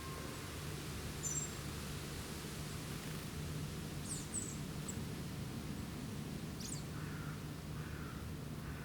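Small birds giving a few brief, high-pitched calls: one about a second in, a little cluster around four seconds and another near seven seconds. The calls sit over a steady low background hum and hiss.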